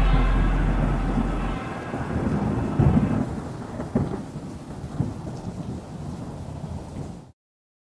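Echoing din of an indoor ice hockey rink, fading over the first few seconds, with a few sharp knocks about three, four and five seconds in; the sound cuts off abruptly near the end.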